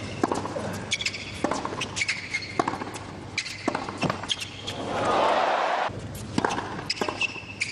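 Tennis rally on a hard court: the ball struck back and forth by racquets about once a second, with short sneaker squeaks on the court surface between strokes. About five seconds in, a second-long burst of crowd noise as the point ends.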